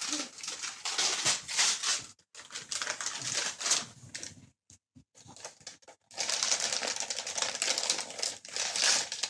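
Wrapping paper being torn and crinkled as a present is unwrapped, in several bursts of crackling with short pauses between.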